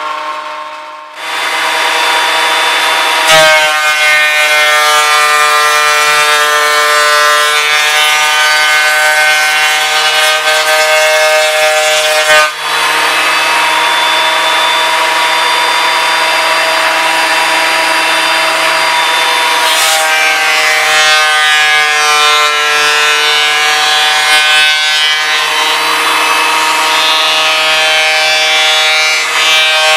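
An electric woodworking power tool cutting or working pine boards. Its motor starts about a second in, and the pitch dips and recovers several times as the load changes. There is a sharp knock about three seconds in and another about twelve seconds in.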